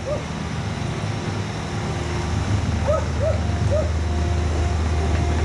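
Diesel engine of compact earthmoving equipment running steadily under work, with runs of short squeaks, about three a second, in the second half.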